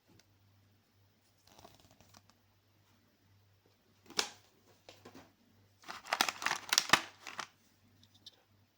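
Packaging being handled and torn open: a soft rustle, a sharp crinkle about four seconds in, then a loud run of crackling and tearing for about a second and a half near the end.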